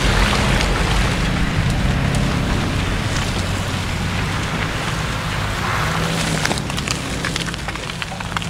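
Off-road vehicle engine running under a steady rushing noise, with a patter of sharp ticks near the end.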